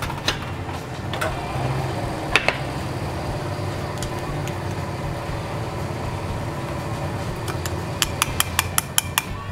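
A wooden pestle knocks a few times in a stone mortar of fried chicken wings. Near the end a spoon taps quickly against a ceramic bowl, about seven sharp ticks in just over a second. A steady low hum runs underneath.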